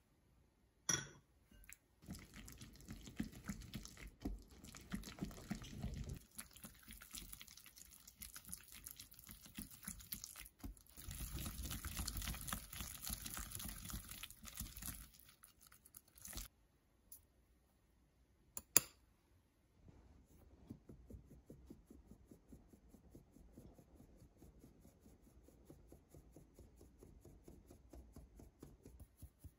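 Silicone whisk mixing a soft butter, sugar and egg batter with jam in a glass bowl, in two spells, then a sharp click. After that, flour is sifted through a metal mesh sieve with faint, regular tapping that grows steadier near the end.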